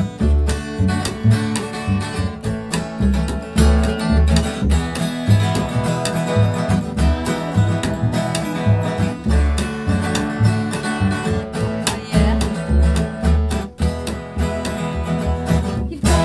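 Instrumental break from an acoustic guitar being strummed and an upright double bass plucking a steady line of low notes underneath, in a bluegrass/country style.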